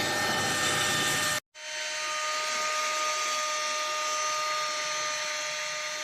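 Cordless handheld car vacuum cleaner running steadily, its motor giving a steady hiss with a high whine. The sound cuts out for an instant about one and a half seconds in, then carries on.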